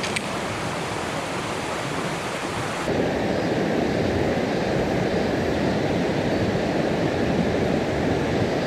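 Mountain stream water rushing steadily over rocks, growing louder and fuller about three seconds in.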